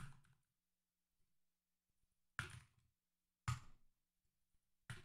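A few separate keystrokes on a computer keyboard: four short clicks spaced a second or so apart, with near silence between.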